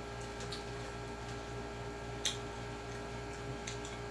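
Steady low hum with an even pulsing undertone, and a few faint sharp clicks scattered through it.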